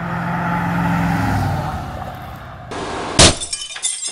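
An older car driving past, its engine note falling as it goes by. About three seconds in, a sudden loud crash of breaking glass, followed by tinkling pieces.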